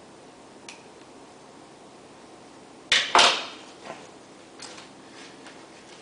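Bonsai tools and wire handled at a work table: two sharp clacks in quick succession about halfway through, with a short ringing tail, then a few faint clicks.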